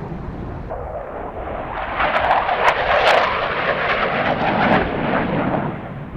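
A jet aircraft flying past: a noisy roar swells from about a second in, is loudest with a crackle in the middle, and fades away near the end.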